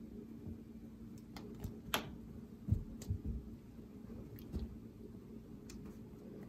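A cat pouncing and batting at a string toy on carpet: a few light, sharp clicks, the strongest about two seconds in, and soft thumps of paws landing around the third and fourth-to-fifth seconds, over a steady low room hum.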